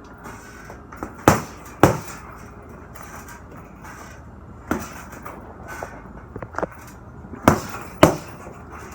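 Punches landing on a heavy punching bag: a hard pair about half a second apart, a single strike near the middle with a few lighter hits after it, then another hard pair near the end.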